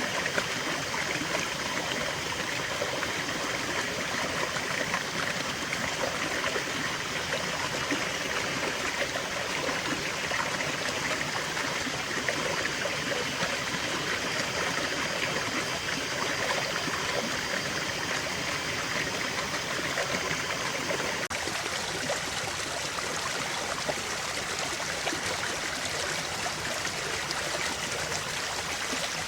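Waterfall: steady rushing and splashing of falling water, with no letup. About 21 seconds in, the tone shifts abruptly to a slightly brighter hiss.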